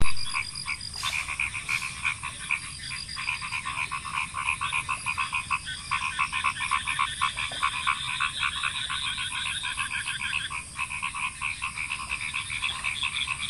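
A dense chorus of frogs calling in rapid, overlapping pulsed croaks, with a steady high-pitched whine above them.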